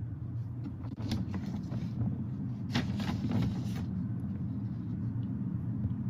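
Steady low background hum of room noise picked up by a video-call microphone, with a few faint clicks and rustles about a second in and around the middle.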